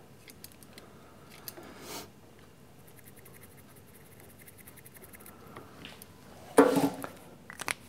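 Felt-tip marker scratching across the flutes of a twist drill to mark a depth line, a fine rapid ticking for a couple of seconds. Near the end, a loud clattering knock as tools are handled and set down.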